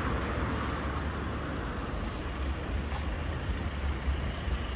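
Road traffic on a wet street: a steady low rumble of vehicle engines with a haze of tyre and rain noise.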